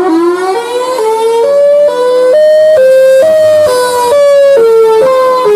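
Warning siren winding up in pitch, then stepping back and forth between a higher and a lower tone about twice a second. The pair of tones climbs gradually and then sinks again.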